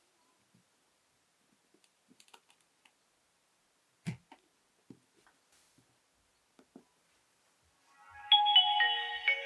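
A few faint clicks and one sharper click, then about eight seconds in a Nokia 6234 mobile phone starts playing a polyphonic ringtone through its loudspeaker: a melody of short notes, several sounding at once.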